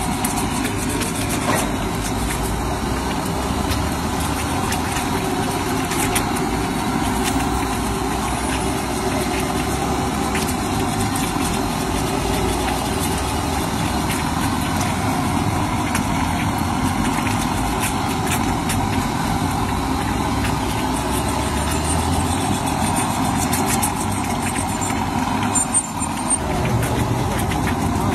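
Dozens of boiled eggs frying in shallow oil on a large flat griddle, the oil sizzling and crackling steadily over a continuous low rumble.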